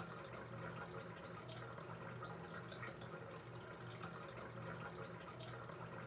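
Faint room noise: a steady low hum with small scattered ticks.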